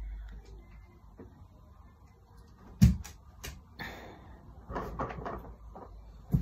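A sharp knock about three seconds in, followed by a few lighter clicks, and another sharp knock near the end, over a low steady hum.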